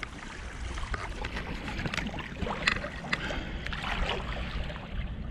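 Shallow water sloshing and splashing in small irregular bursts around a hand holding a sea trout under the surface to release it. A steady wind rumble on the microphone runs underneath.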